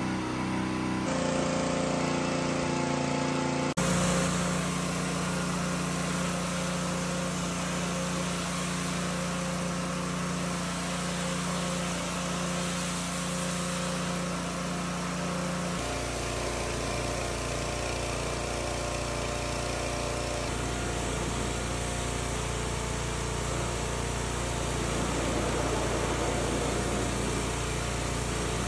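Pressure washer running: a steady engine hum under the hiss of the high-pressure spray. The sound changes abruptly a few times, as one take cuts to the next.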